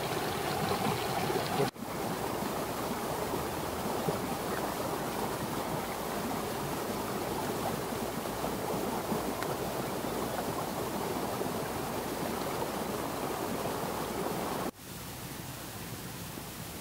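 Steady outdoor rushing noise with no clear single source, cut off abruptly twice, about two seconds in and near the end; after the second cut it is quieter.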